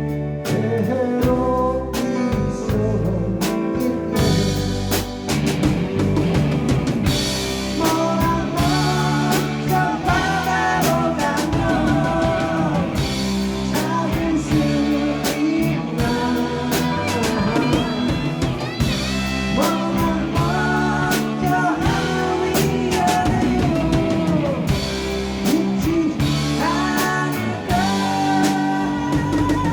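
Live band playing a slow rock ballad: drum kit, bass and guitars with keyboard, and a melodic lead line bending over the top.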